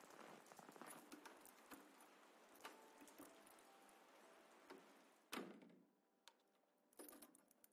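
Near silence: faint room noise with scattered small clicks and ticks, and one sharper click a little past five seconds in.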